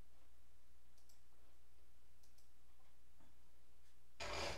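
Faint scattered clicks over a steady low hum, with a short, louder noise about four seconds in.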